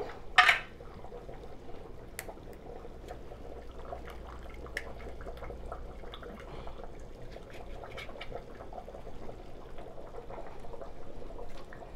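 Pot of pondu (cassava leaves) cooking on the stove: steady bubbling and trickling of liquid, with small scattered ticks.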